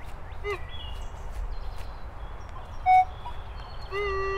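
Metal detector giving target tones as the coil is swept: a couple of short warbling tones early on, a short sharp beep about three seconds in, then a steady held tone starting about four seconds in while a button on the control box is pressed.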